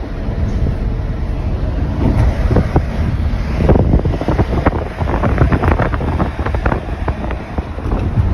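Wind buffeting the microphone as a car drives at speed, over a steady low rumble of road noise; the gusting grows stronger about two seconds in.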